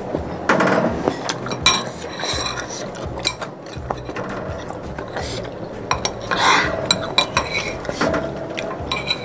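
A metal spoon and chopsticks clinking and scraping against a ceramic bowl while stirring and lifting noodles in soup, with slurping and chewing of the noodles.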